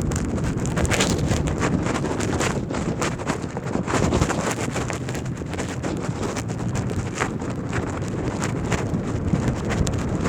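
Wind buffeting the microphone of a moving electric dirt bike, a steady rush with many scattered clicks and crackles running through it.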